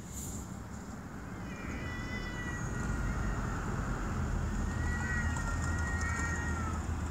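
Two domestic cats in a territorial standoff, yowling: two long, drawn-out wavering howls, the first about a second and a half in, the second longer, near the end. A low steady rumble rises underneath from about halfway.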